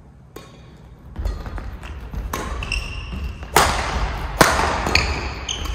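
Badminton singles rally: sharp racket hits on the shuttlecock spaced roughly a second apart, with sneakers squeaking and footfalls thudding on a wooden gym floor.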